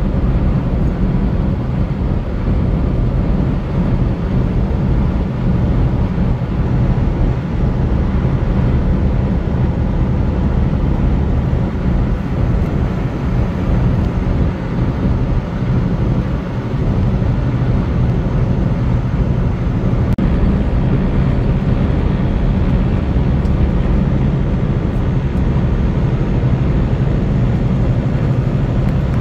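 Steady drone of a semi truck's engine and tyre and road noise, heard inside the cab while cruising at highway speed.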